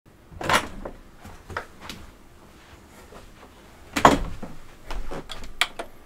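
A series of knocks and thumps from things being handled, the loudest about half a second and four seconds in, with two sharp clicks near the end.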